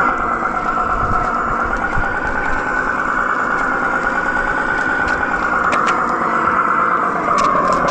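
Simulated Mack E7 diesel truck engine sound from the EUC World app's AVAS, played through a KingSong KS16X electric unicycle's built-in speakers while riding: a steady engine drone with a held tone and a few faint clicks.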